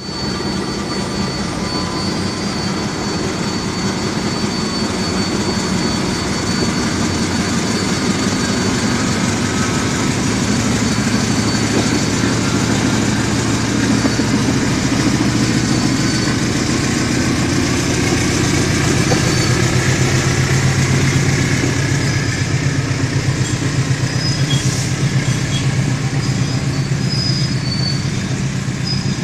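A CC 206 diesel-electric locomotive running as it hauls a container freight train slowly past, a steady engine hum and rolling noise that grows louder in the middle of the pass. A few short high squeals come near the end as the wagons roll by.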